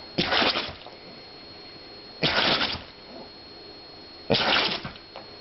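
A puppy sneezing three times, about two seconds apart, each sneeze a short sharp burst of air. A faint steady high whine runs underneath.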